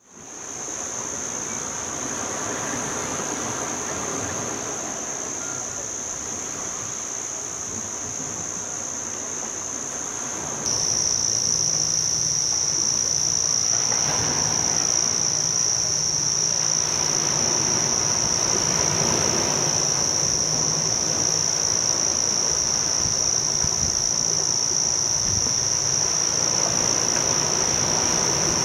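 Steady, continuous high-pitched drone of an insect chorus. About ten seconds in it abruptly becomes louder and slightly lower in pitch.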